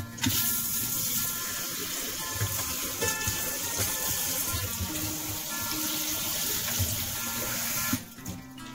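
Kitchen pull-out spray faucet running, its spray splashing onto leafy greens being rinsed in a stainless steel colander in a steel sink. The water comes on just after the start and shuts off suddenly about a second before the end.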